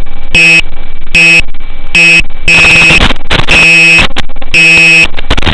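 Electronic buzzer sounding a harsh, loud beep about seven times, the beeps short and unevenly spaced, some longer than others.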